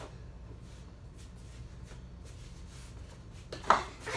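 Feet shuffling faintly on a hard floor during a one-on-one basketball game, with a few soft taps, then a sharp loud knock about three and a half seconds in and a smaller one just after it.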